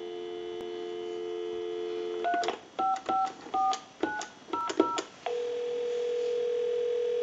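Telephone line audio through a Mickey Mouse telephone: a steady dial tone, then about two seconds in, seven quick touch-tone (DTMF) digits dialed, and from about five seconds in a steady ringing tone on the line as the call goes through.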